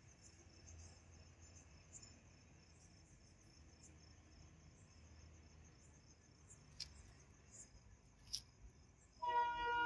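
Crickets chirping steadily and faintly in the dark, with two short clicks. Near the end, the approaching goods train's locomotive horn starts: a loud blast of several steady tones at once.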